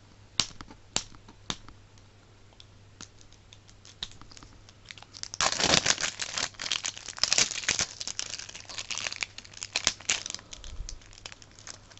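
Thin plastic wrapping on a Mini Brands capsule ball being crinkled and torn off by hand: a few separate crackles at first, then dense crinkling from about halfway through.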